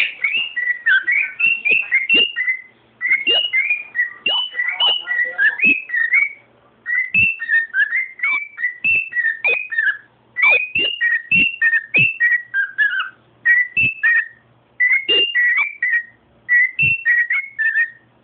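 Cockatiel whistling a song: quick runs of clear whistled notes that rise and fall in pitch, in phrases of a few seconds separated by short pauses.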